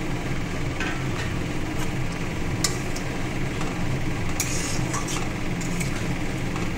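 A metal spatula clinks and scrapes against a wok a few times as fried eggs are stirred into a curry, over a steady low mechanical hum.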